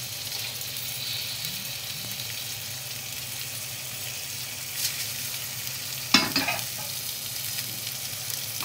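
Mutton and onions sizzling in a hot pressure-cooker pot: a steady crackling hiss over a low hum. A sharp clank with a short ring comes about six seconds in.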